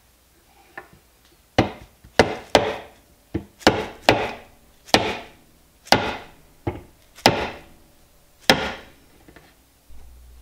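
Rubber mallet tapping a glued turned wooden wheel onto its axle on a wooden shelf: about a dozen sharp knocks at uneven intervals, each with a short ring-out through the wood.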